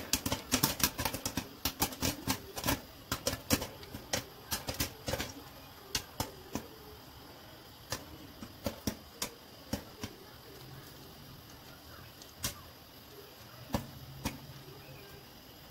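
Popcorn kernels popping in a covered pan with a glass lid: rapid pops over the first few seconds, thinning to occasional single pops near the end as the batch nears done.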